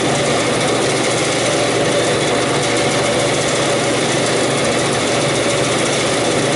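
Walk-in cooler evaporator fans running, a loud steady whir of motor and blowing air close by.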